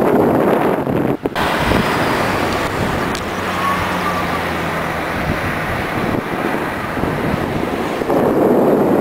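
Steady engine and road-and-wind noise heard from a vehicle driving along a road, with a passenger pickup-taxi passing close alongside at the start.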